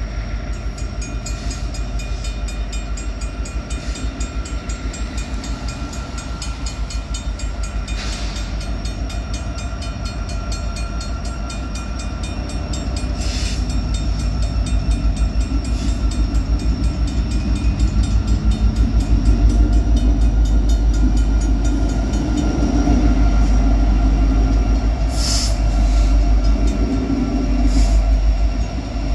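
Freight train moving through a rail yard: a steady low rumble with a fast regular beat that grows louder in the second half, with a few short, sharp high-pitched metallic sounds.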